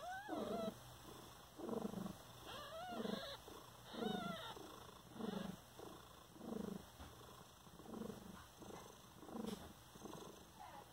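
Mother cat purring while nursing newborn kittens, the purr swelling and fading with each breath about once a second. A few short, high mews that rise and fall come from the kittens near the start and again around three to four seconds in.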